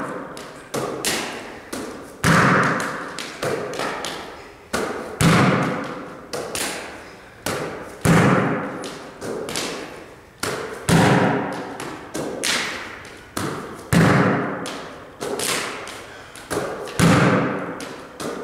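Basketball bounced hard off a sport-court floor again and again, a loud bounce about every three seconds, each echoing in the hall, with lighter thuds of catches and passes between.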